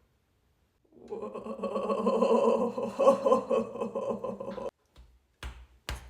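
A person's voice making one long, drawn-out wordless vocal noise that holds roughly one pitch for nearly four seconds and cuts off abruptly, followed by two short sharp clicks near the end.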